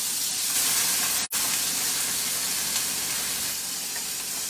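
Diced red bell peppers sizzling as they hit a hot nonstick skillet to be sautéed, a steady frying hiss, with a momentary gap in the sound a little over a second in.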